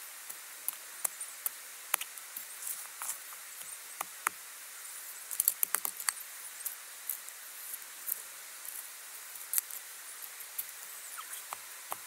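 Stones and dry soil clicking, knocking and crunching as stones are bedded by hand into the edge of a dug fire pit. The clicks are scattered and irregular, with a quick run of them about halfway through.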